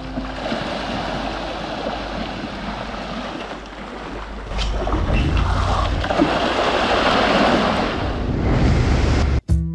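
Water splashing and churning as farmed salmon thrash at the surface of a feeding pen. About halfway through, this gives way to the loud, low rush of wind and engine from a Honda Africa Twin motorcycle at highway speed.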